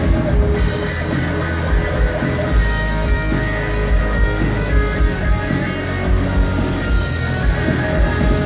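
Live rock band playing: acoustic guitar, electric guitar and bass guitar over a drum kit keeping a steady beat.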